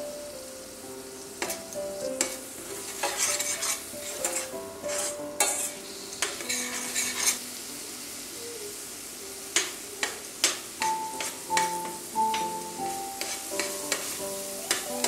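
Metal spoon stirring and scraping a stainless steel pan in irregular strokes and clinks, while onion, garlic and diced tomato sizzle in oil.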